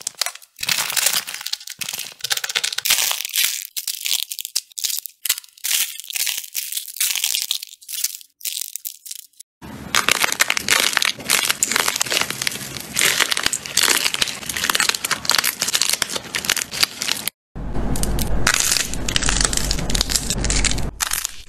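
Crunchy, crackly slime being squeezed and pressed between the fingers, making dense crackling and popping. The sound comes in patches for about the first nine seconds, then turns almost continuous. A different slime follows after a short break near the end, with a low rumble under it.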